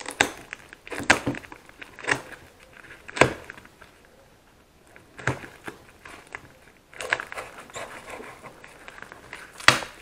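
Knife cutting and tearing open a plastic mail envelope to free the taped cardboard box inside: scattered rustling and crinkling with sharp rips and snaps. It goes quieter about four seconds in, then gets busier toward the end.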